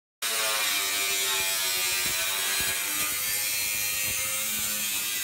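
Electric angle grinder with a cut-off disc cutting into the stainless steel shell of a beer keg: a steady, high-pitched grinding hiss over the motor's whine, starting abruptly just after the start.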